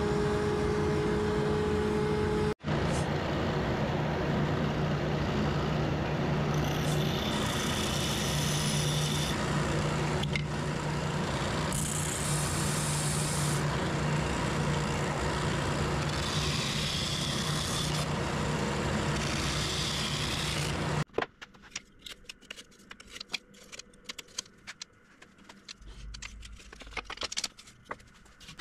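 A router table's router running with a steady whine, cut off about two and a half seconds in. Then a spindle sander running loudly while a piece of wood is pressed against the sanding drum, stopping about 21 seconds in. After that, light scrapes and taps of wooden parts handled on a workbench.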